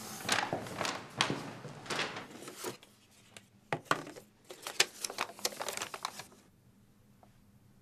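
Paper gift bag rustling, then tissue paper crinkling in short bursts as a shoe box is opened and the wrapping folded back.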